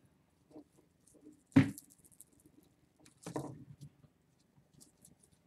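Twine and dry needles of a small handmade broom rustling and scratching as the twine is pulled tight and knotted, with a sharp knock about a second and a half in and a louder rustle just after three seconds.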